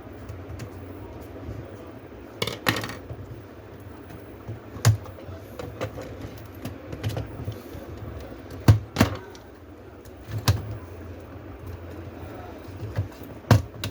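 Scattered clicks and knocks of laptop parts being handled and set down during disassembly, about five sharper ones, over a steady low hum.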